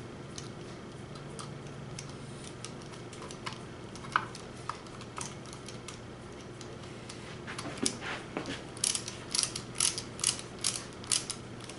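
Small clicks and taps of parts on a Traxxas Rustler RC truck's chassis being handled as its camber links are refitted. Near the end come a run of evenly spaced clicks, about two or three a second.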